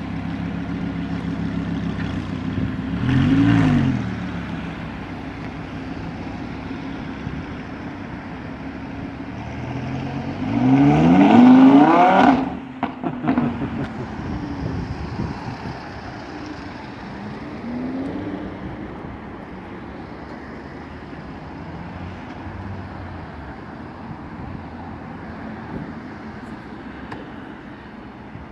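Lamborghini Huracán's V10 engine: a short rev about three seconds in, then a full-throttle pull rising in pitch from about ten seconds in, the loudest part, which cuts off suddenly into a few sharp exhaust crackles. After that the engine sound falls back and fades away.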